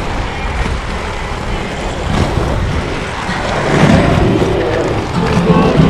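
Inline skate wheels rolling over stone paving slabs: a steady rough rumble that grows louder about four seconds in.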